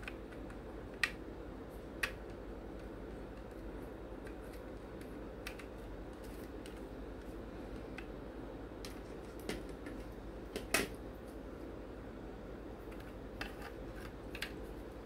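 Plastic model-kit parts clicking and tapping as they are handled and pressed together in a dry fit: a scattering of sharp clicks, the loudest about ten seconds in, over a steady background hum.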